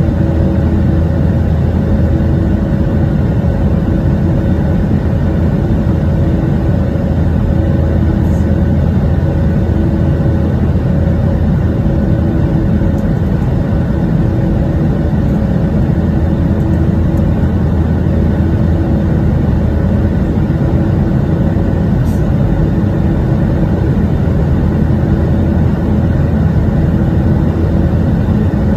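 Jet airliner's engines and airflow heard from inside the cabin in flight: a loud, steady rumble with a few constant hums, unchanging throughout.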